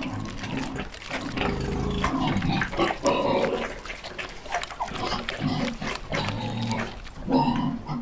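Several piglets grunting: short, low grunts overlapping one after another in a busy, irregular stream.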